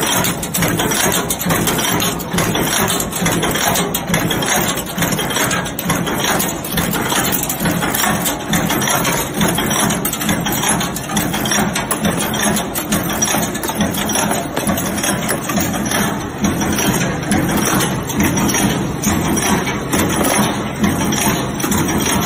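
Screw-making machine running, a steady mechanical clatter of rapid, evenly repeating strokes.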